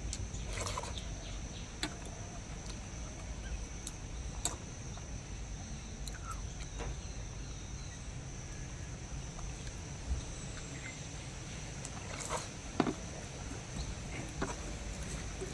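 Eating by hand: scattered soft clicks and smacks of chewing, and fingers working wet soaked rice, over steady outdoor background noise with a thin high-pitched hum.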